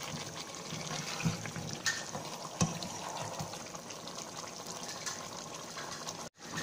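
Chicken and potato curry sizzling and bubbling in a frying pan while being stirred with a spatula, with a few short scrapes and knocks of the spatula against the pan. The sound drops out for a moment near the end.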